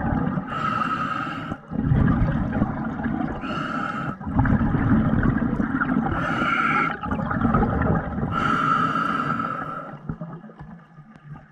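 A diver breathing underwater: four hissing inhalations, about one every 2.5 to 3 seconds, alternating with a rumble of exhaled bubbles that dies down near the end.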